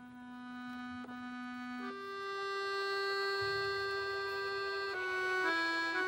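Accordion playing a slow instrumental passage of long held notes, swelling up from quiet. It moves to a new note about two seconds in and changes twice more near the end.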